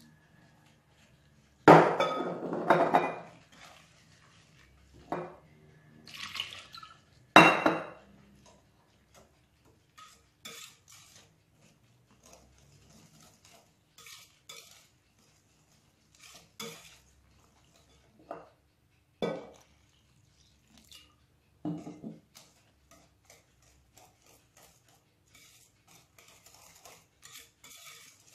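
Wire whisk clinking and scraping against a ceramic bowl as semolina and warm water are stirred into a batter. The knocks come at irregular intervals, the loudest in the first eight seconds, then lighter taps.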